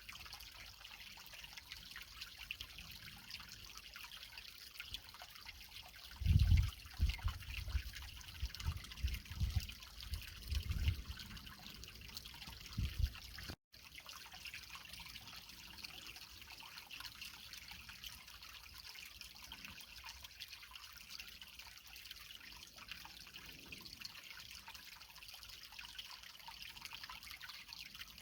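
Creek water trickling and dripping over rocks, a steady hiss. Between about six and thirteen seconds in comes a run of low thumps and rumbles, louder than the water, and the sound drops out for a split second shortly after them.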